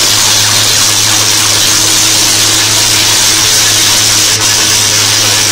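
Tesla coil lightning arcing between two performers' metal swords: a loud, steady electric buzz over a low hum.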